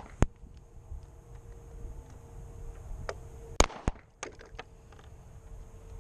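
Pistol shots: a single sharp report just after the start, then three more in quick succession about three and a half seconds in, with fainter clicks between.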